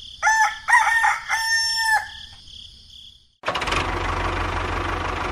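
A rooster crows once, a cock-a-doodle-doo of about two seconds in three joined parts. About three and a half seconds in, a dense steady sound with a low hum starts abruptly.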